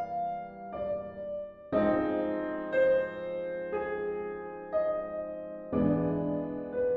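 Slow piano music: a single note is struck about once a second, with deeper, fuller chords coming in about two seconds and six seconds in.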